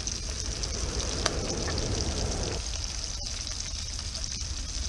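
Fish frying in butter in a pot on a portable gas stove: a steady sizzle, with a single sharp click a little over a second in.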